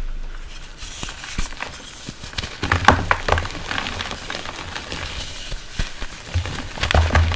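Soft reformed gym chalk blocks topped with charcoal powder and glitter being crushed and crumbled by hand: soft crunching and crackling with low thuds, densest about three seconds in and again near the end. A steady rain-like hiss runs underneath.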